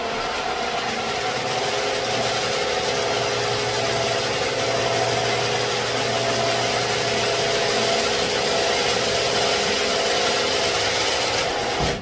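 Noisy old garage door opener running as it lowers the door: a loud, steady mechanical grinding with a constant whine and hum, which cuts off just before the end as the door closes.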